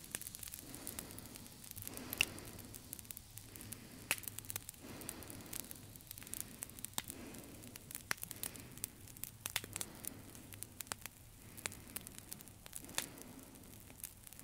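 Crackling, rustling noise with many sharp clicks, swelling and fading every couple of seconds.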